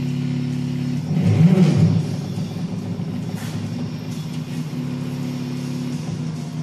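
Stepper motors of a CNC machine humming at several steady pitches as they drive a paint pen, growing louder with a change in pitch between one and two seconds in.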